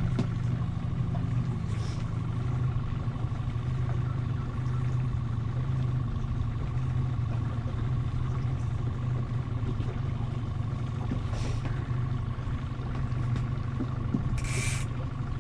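Outboard motor idling steadily with an even low hum, with a few short hissing bursts, the longest about a second from the end.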